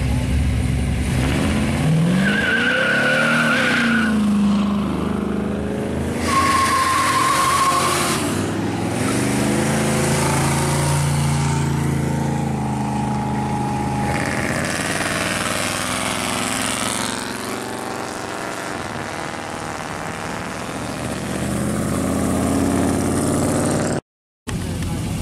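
Classic car engines leaving a show: a Chevrolet Impala revs and pulls away with two short tire squeals, then more cars run and pass on the road. Near the end another classic Chevrolet's engine runs as it rolls off.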